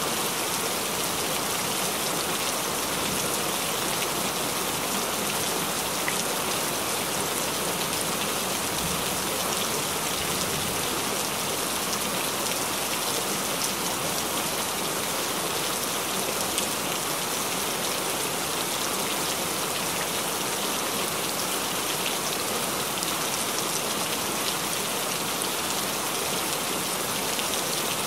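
Recorded rain falling steadily: a dense, even hiss of rain with scattered drop ticks.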